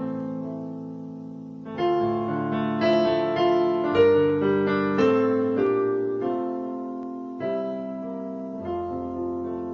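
Piano playing a slow hymn tune, a new chord or melody note struck about every second, each ringing and fading before the next.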